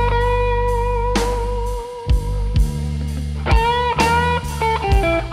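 Electric guitar solo over bass and drums: long sustained notes with wide vibrato and upward string bends, with cymbal crashes.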